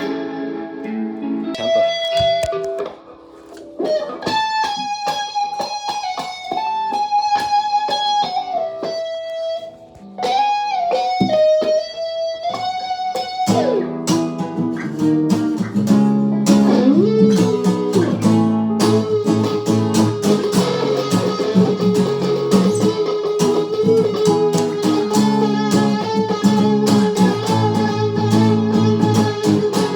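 Guitar jam. Single-note melodic lines with held notes give way, about halfway through, to a fuller, denser passage with low chords under a sustained melody note.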